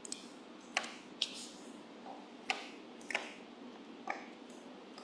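Computer mouse clicking: about six short, sharp clicks at uneven intervals over a faint steady hiss.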